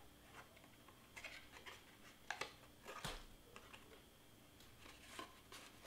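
Faint, scattered rustles and light taps of cardstock being handled and pressed down by hand as glued paper tabs are set in place.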